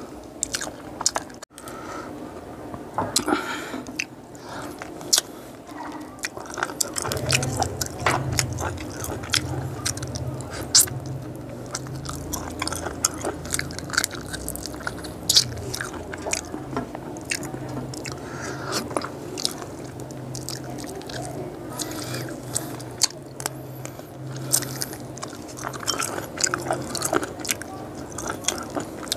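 Close-miked chewing and biting of boiled frog, with many short sharp crunches of small bones and wet mouth sounds; a low hum sits underneath from about seven seconds in.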